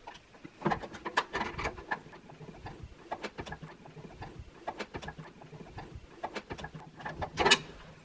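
Screwdriver turning a screw into a graphics card's mounting bracket on a PC case's metal expansion-slot frame: a run of small scratchy clicks as the screw turns, with a sharper, louder click about seven and a half seconds in.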